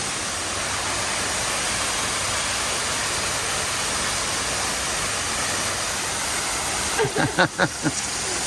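Steady rushing of falling water from a resort pool's waterfall. About seven seconds in, a brief burst of voice sounds lasts about a second.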